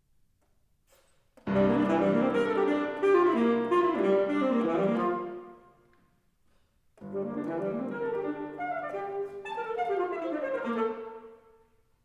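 Alto saxophone and piano playing together in two loud, busy phrases. The first starts about a second and a half in and breaks off about halfway through. The second follows after a brief silence and stops shortly before the end.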